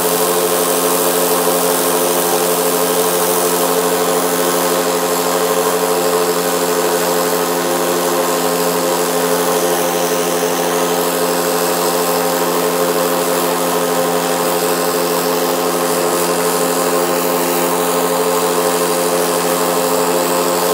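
Paramotor engine and propeller running at a steady speed, a constant droning hum with no change in pitch.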